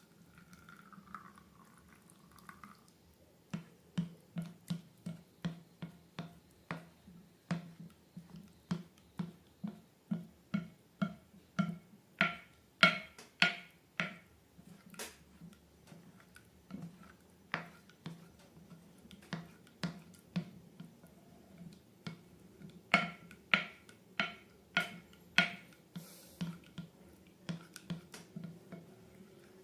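Slime being squeezed and worked by hand, giving a run of sticky clicks and pops about two to three a second, louder in two clusters.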